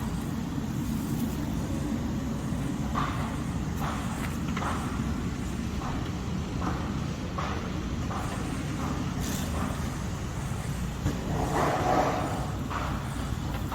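A steady low motor rumble, with short sounds now and then over it and a louder stretch about eleven seconds in.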